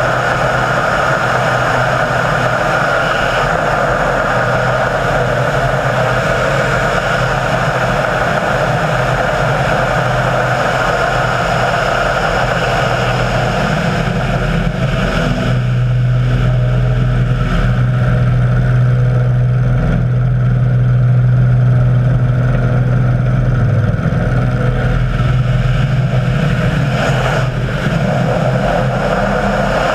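Small engine of a radio-controlled model aircraft running steadily at high power. A low hum grows stronger about halfway through and drops back a few seconds before the end.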